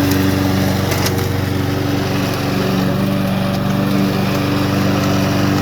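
Walk-behind gas lawnmower engine running at a steady speed, its control lever held down to keep it going after a pull start.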